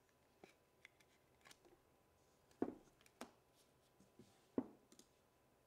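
A trading card being handled in a rigid plastic top loader and set down on a table: a few faint scrapes and light clicks, then three sharper plastic taps in the second half.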